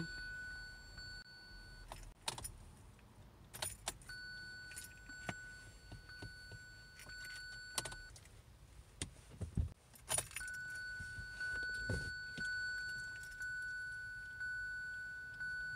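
A steady high electronic warning tone from the 2017 Kia Sorento, heard in three stretches of a few seconds each, with keys jangling and several sharp clicks in between. There is no engine cranking or firing: the car will not start.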